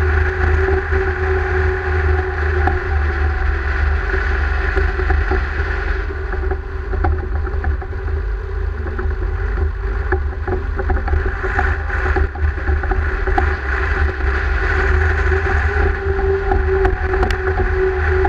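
Deutz-Fahr Agrosun tractor's diesel engine running steadily under way, picked up close to the exhaust stack on the bonnet: a loud, deep drone with a constant tone on top, easing off slightly for a few seconds in the middle.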